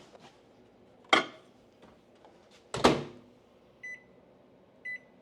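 Microwave oven door clunking twice, sharply, then two short high beeps from the keypad as the cooking time is entered.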